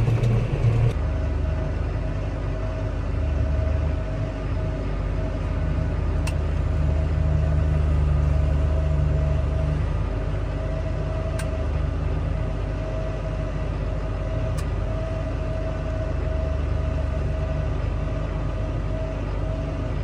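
Tractor engine running steadily, heard from inside the cab while it pulls a TMR mixer wagon. A steady mid-pitched whine sits over the low drone, and a few faint ticks come through.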